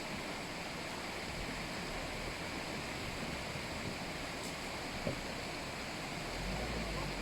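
Steady rush of flowing river water, with a low rumble coming in near the end.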